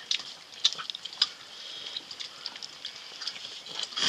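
Irregular light clicks and taps over a faint steady high hiss. The two sharpest clicks come within the first second and a half, and a louder rustling burst comes at the very end.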